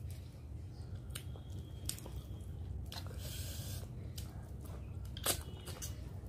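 Close-up mouth sounds of chewing a hand-fed mouthful of rice and fish-head curry, with small wet clicks and smacks. There is a brief rustle about three seconds in, a sharper click a little past five seconds, and a steady low hum underneath.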